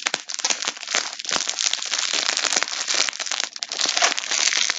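Plastic packaging crinkling and crackling steadily as it is handled, with many sharp clicks.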